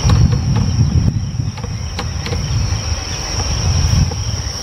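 Uneven low rumble of wind buffeting the microphone, over a steady high-pitched insect drone, with a few faint clicks.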